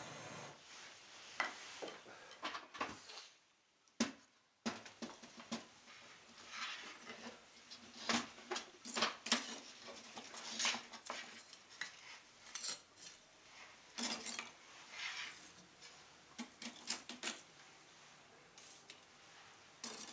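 Lumps of charcoal clinking and knocking against each other and a metal bucket as they are taken out and stacked one by one onto glowing embers in a sunken irori hearth. The clinks are sharp, hard and irregular. At the very start a steady hiss of breath blown through a bamboo fire-blowing tube stops.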